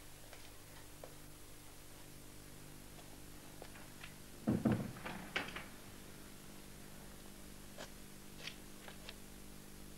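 A door bumping shut about halfway through, a heavy thud followed by a few knocks and clicks, over a faint steady hum.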